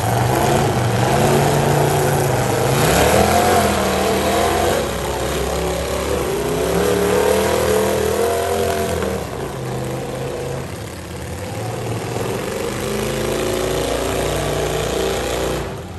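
Demolition derby cars' engines running and revving on a dirt arena, several at once, their pitch rising and falling as the drivers throttle up and back off.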